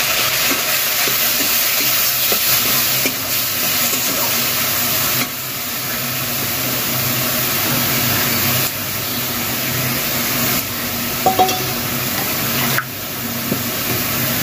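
Coconut and green chilli paste sizzling in hot mustard oil in a steel kadai while a spoon stirs and scrapes it around the pan. The sizzle drops in level abruptly a few times, with a brief clink about eleven seconds in.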